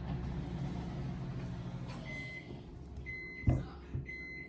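Short high electronic beeps repeating about once a second, starting about halfway through, over a low steady hum that fades out as the beeping begins. Two sharp knocks fall between the beeps, the first of them the loudest sound.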